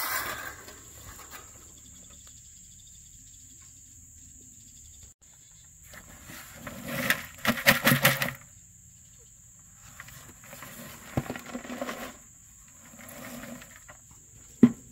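Steady high-pitched insect drone, cricket-like, with irregular bursts of rustling and knocking handling noise, the loudest about halfway through.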